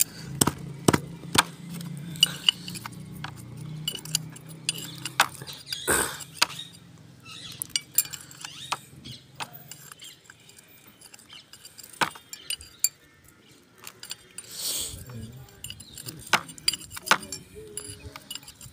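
A spanner clinks and clicks against the bolts of a tractor hydraulic pump as its four housing bolts are loosened by hand. The sharp metallic taps come at irregular moments, over a low steady hum that stops about halfway through.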